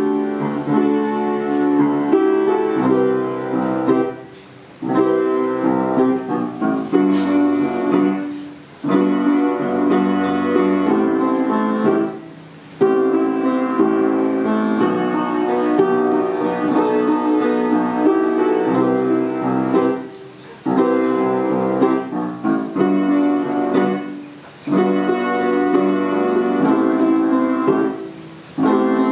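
Piano music, played in phrases with short breaks every few seconds.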